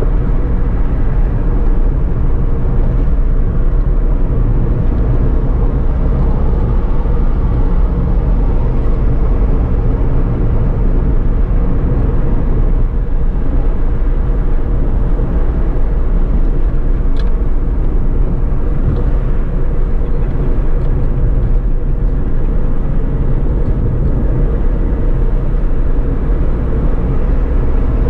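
Suzuki Alto cruising at a steady highway speed: an even engine drone and tyre-on-road noise heard from inside the cabin.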